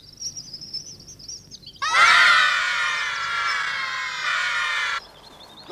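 A crowd of children shouting together in one long, drawn-out cry lasting about three seconds. It starts about two seconds in and cuts off suddenly. Before it, a bird twitters in the background.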